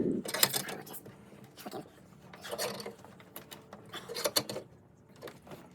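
Hand tools and small metal parts clinking and rattling in short clusters about once a second, over a faint steady hum.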